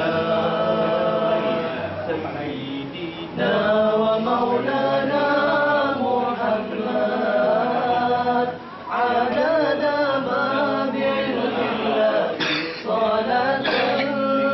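Men singing a nasyid melody unaccompanied, in long held notes, with brief pauses for breath about three and a half and nine seconds in.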